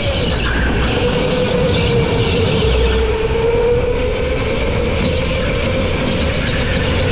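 Go-kart running at speed through corners, its motor a steady whine that dips slightly in pitch and comes back up, over a continuous low rumble.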